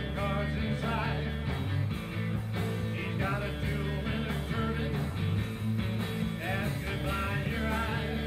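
Live blues-rock band playing: electric guitar, bass and drum kit, with a lead line that bends and wavers in pitch over a steady bass line.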